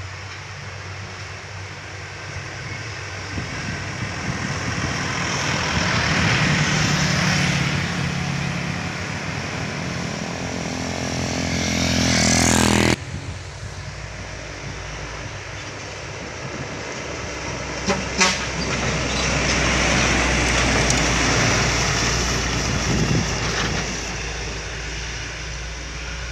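Heavy trucks and buses passing on a road, their engines swelling loud as each goes by. About halfway through, one engine rises steadily in pitch, then cuts off suddenly, and later there are a couple of short horn toots.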